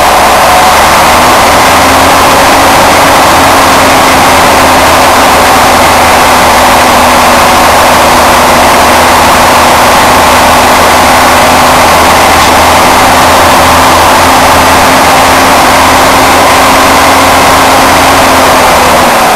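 Scania L113 bus's inline six-cylinder diesel engine running very loud and steady under acceleration. Its tone settles about a second in, holds, and falls away right at the end.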